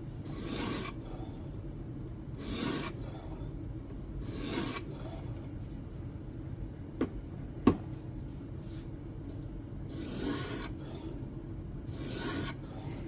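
A coarse 120-grit stone on a guided knife sharpener, drawn across a Kizer Domin's N690 steel blade with a rasping, filing sound in single slow strokes about two seconds apart. There are three strokes, then two sharp clicks midway, then two more strokes, reprofiling the edge.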